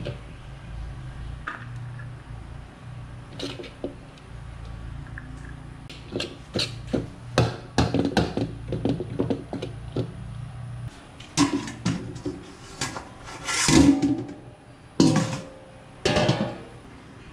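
Metal ladle scraping and knocking against a black wok while fried rice is stir-fried, over a steady low hum. Near the end come a few louder clanks as a steel lid goes onto the wok.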